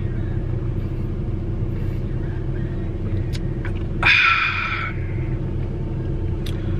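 Steady low rumble of a car's road and engine noise heard from inside the cabin while driving. About four seconds in, a brief high-pitched squeak or tone cuts through for under a second.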